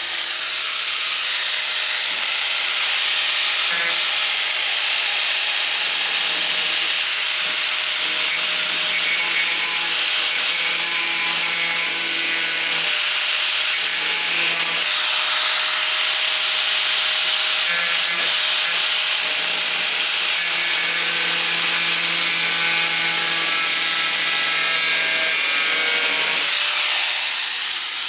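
4.5-inch angle grinder with a thin cutoff wheel cutting through the sheet metal of a truck's wheel arch, running continuously with a high hiss, its note shifting now and then as the wheel bites in.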